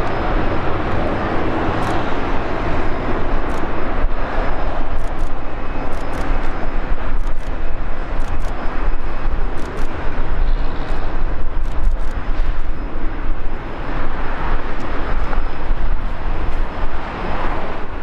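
Embraer 190 jet's two turbofan engines at takeoff thrust, a loud steady rumble as the airliner accelerates down the runway and lifts off.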